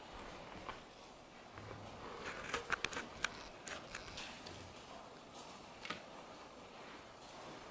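Faint steps of a horse walking on soft sand arena footing, with a quick cluster of sharp clicks between two and three seconds in and one more click near six seconds.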